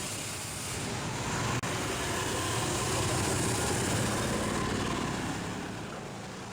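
Street traffic: a motor vehicle's engine and tyre noise passing, building over the first few seconds and fading near the end.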